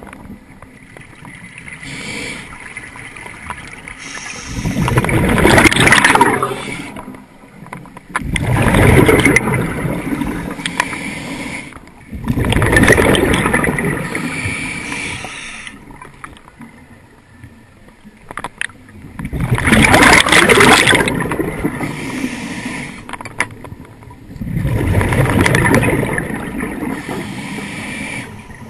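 Scuba diver breathing through a regulator underwater: five long rushes of exhaled bubbles, about one every four to five seconds, with quieter stretches between.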